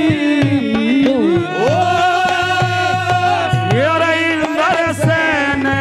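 Haryanvi saang folk music: a held, gliding melody line over a steady hand-drum beat, between sung verses.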